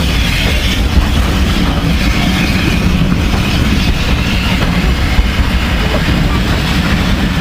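A train rolling over a level crossing: a steady, heavy rumble of wheels on the rails.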